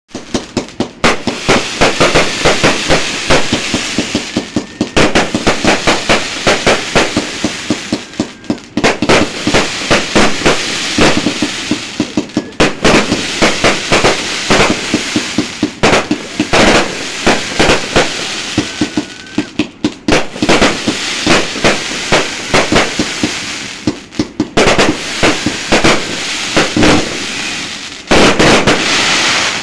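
Fireworks going off in rapid volleys of sharp bangs and crackles, many per second. The volleys come in runs of a few seconds with brief breaks between them.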